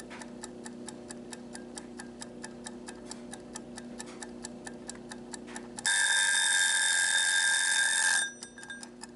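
Mechanical wind-up tomato kitchen timer ticking rapidly and evenly, then its bell ringing loudly for about two and a half seconds near the end as the timer runs down to zero. The ring cuts off suddenly and the ticking is heard again.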